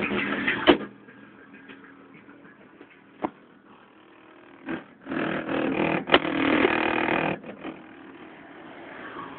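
Music from the car's bass sound system plays and then stops with a click under a second in. After that there is low noise with a few knocks and a louder rush of noise lasting about two seconds past the middle.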